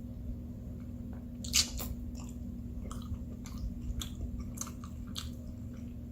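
Close-miked chewing of food, with scattered mouth clicks and one louder click about one and a half seconds in, over a faint steady hum.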